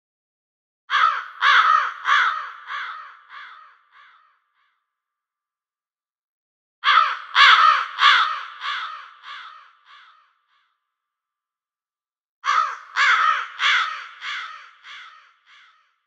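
A crow cawing in three bouts, each a run of about six caws, some two a second, that fade away over about three seconds, with silent gaps between the bouts.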